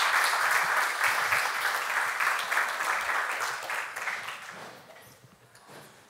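Audience applauding, dying away about four to five seconds in.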